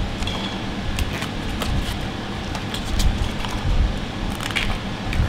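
The stiff outer bracts of a banana blossom being peeled off by hand, with a few light crackles and clicks, over a steady low kitchen hum.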